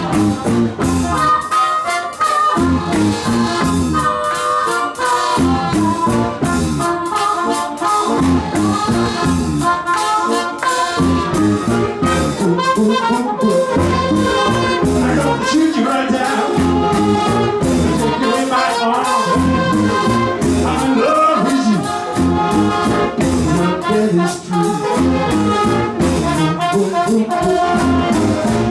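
Live band music with brass, trumpet and trombone, over a steady beat.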